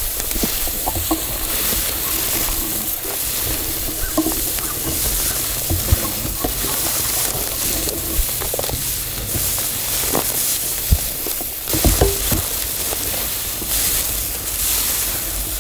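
Tall dry prairie grass rustling and swishing against legs and clothing as people wade through it, with footsteps and a few short thuds along the way.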